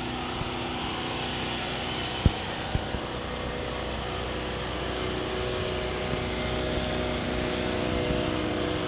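Backup generator engine running steadily during a power outage; its hum grows a little louder in the second half. Two brief knocks come a couple of seconds in.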